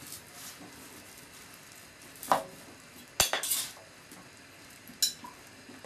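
Kitchen knife cutting a wedge out of a hard-skinned pumpkin: three sharp knocks of the blade, about two, three and five seconds in, the second followed by a brief clatter.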